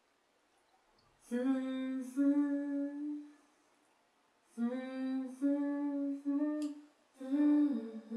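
A woman humming a slow, simple tune in three short phrases with pauses between them, her voice moving in small steps between a few held notes.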